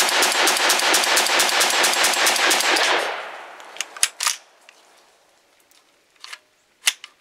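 Hill & Mac Gunworks CETME-L, a semi-automatic roller-delayed rifle in 5.56 NATO, fired rapidly, several shots a second. The string stops about three seconds in and the sound dies away, followed by a few sharp clicks.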